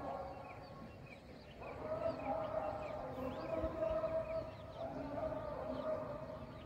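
A distant siren sounding a long steady wail that swells up about a second and a half in and again near the end, with small birds chirping.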